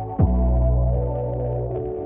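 Background music: sustained ambient synth chords over a deep bass, with a quick falling sweep effect at the start of a new chord.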